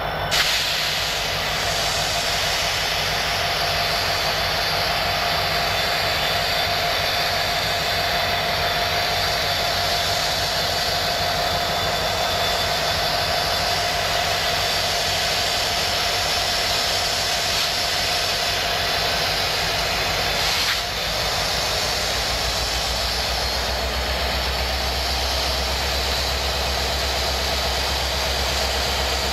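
BNSF EMD SD75M diesel-electric locomotive passing slowly close by, its engine running steadily under load with a steady whine over the engine noise.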